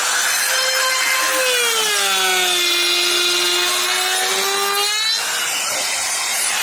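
Electric power tool cutting wood: a motor whine with a rough cutting noise beneath it. The whine dips in pitch about a second and a half in as the tool takes the load, holds steady, then stops about five seconds in while the rough noise continues.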